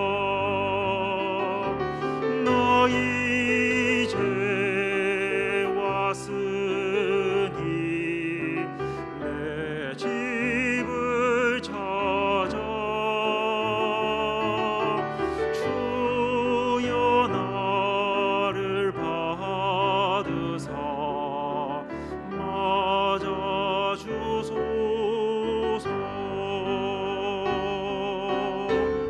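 Music: a classically trained tenor voice singing a hymn with wide vibrato, over piano accompaniment.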